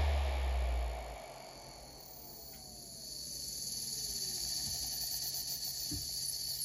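Maxtor MaXLine Pro 500 7200 rpm hard drive spinning down: its hum stops about a second in, then a faint whine falls steadily in pitch over the next few seconds as the platters slow. A thin, steady high-pitched hiss comes up in the second half.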